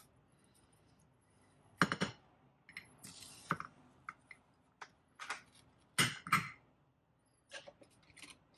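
The pull-tab lid of a round sardine can being peeled back and off. A series of sharp clicks and scrapes, with a short rasp about three seconds in and two louder knocks near six seconds.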